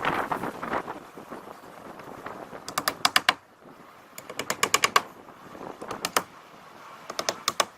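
Nails being driven to fasten roofing underlayment to a flat roof deck: four quick bursts of sharp strikes, several strikes to a burst, each burst a second or so after the last.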